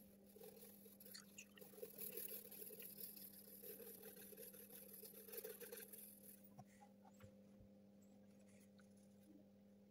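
Faint scratching of a graphite pencil shading on drawing paper in quick short strokes, stopping about two-thirds of the way through as the pencil is lifted, over a steady low hum.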